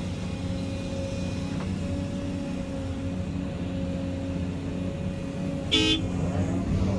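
Volvo EC220E excavator's engine and hydraulics running steadily under load, heard from inside the cab while it loads a dump truck. A short horn toot sounds about six seconds in.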